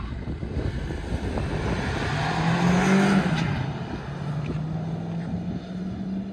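Two Volkswagen Virtus sedans accelerating hard from a standing start in a drag race: a stock GT with the 1.5 TSI four-cylinder and a stage-1-tuned 1.0 TSI three-cylinder. Their engine note rises and grows loudest about three seconds in, then fades as they pull away.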